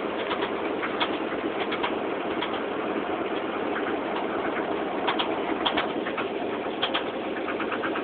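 1986 Chevy Silverado's 305 small-block V8 running with an irregular rattling knock: sharp ticks scattered over the steady engine sound, not keeping an even beat. The owner doubts it is rod knock because it is not consistent.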